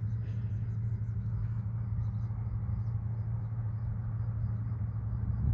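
A steady low engine hum, even in level, with faint short high-pitched chirps repeating over it.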